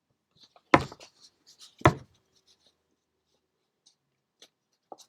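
Two sharp taps about a second apart, followed by a few faint clicks near the end.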